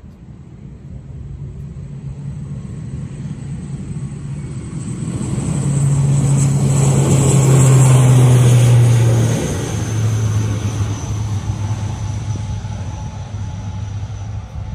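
ATR 72 twin-turboprop airliner at full takeoff power, its Pratt & Whitney PW127 engines giving a low propeller drone and a high turbine whine. It grows louder as the aircraft runs down the runway and is loudest as it passes about 8 s in. Then the drone and the whine drop in pitch, and the sound fades slowly as the aircraft lifts off and climbs away.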